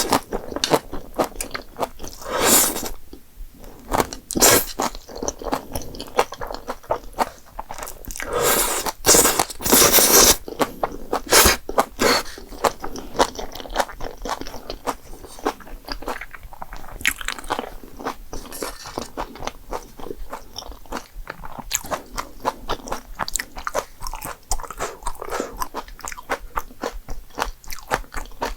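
Close-miked eating: a person chewing and biting food with wet crunching, in many irregular short bursts, louder and longer about a third of the way in.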